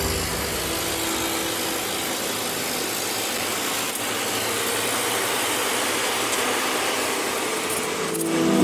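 Steady road noise inside a moving vehicle on a highway: an even hiss of tyres and wind with the engine running underneath, holding at a constant pace. Music comes back in near the end.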